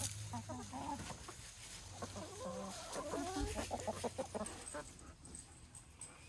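A flock of hens clucking as they peck at freshly scattered scratch grain, many short bending calls mostly in the first four seconds or so.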